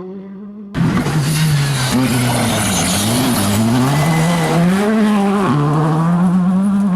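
Rally car engine under hard throttle, starting suddenly and loud about a second in, its pitch dropping and climbing repeatedly with lifts and gear changes, and stepping up sharply late on.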